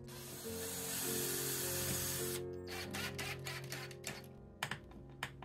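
Background music over a cordless drill-driver running for about two seconds, then a run of sharp clicks and taps from the tool working a nut on a battery cable lug at the DC breaker terminal.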